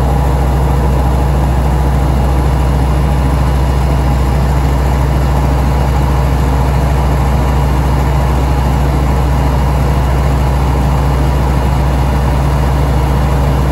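Steady drone of a propeller aircraft's engine and propeller in cruise, heard inside the cabin: a loud low hum with a constant rushing noise over it.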